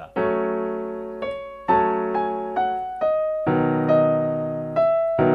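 Piano playing a slow phrase: a chord is struck and held, then a melody of single notes steps downward over it, and new chords with a deeper bass come in past the middle and near the end.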